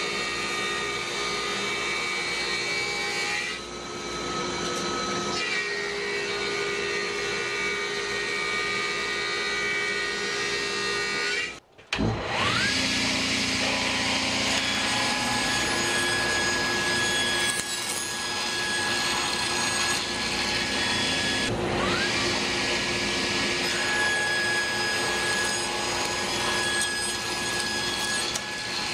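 A thickness planer runs with a dust collector while a board feeds through it. About twelve seconds in it gives way to a table saw that spins up, its pitch rising to full speed, and crosscuts a board on a sled. The saw spins up again a little over twenty seconds in.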